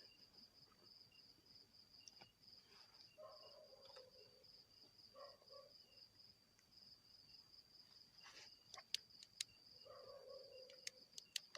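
Insects chirping in a steady, fast-pulsing high trill, faint overall. A few sharp clicks come in the last few seconds.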